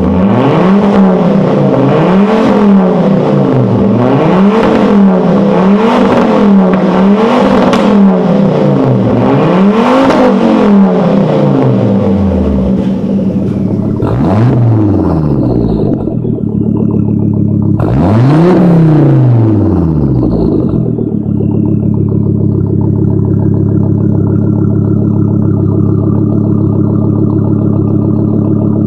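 Volvo 850 T-5R turbocharged inline-five through a straight exhaust, revved in a series of quick blips about every second and a half. Then a Volvo 850 Turbo with a 3-inch turbo-back exhaust is revved twice and settles into a steady idle.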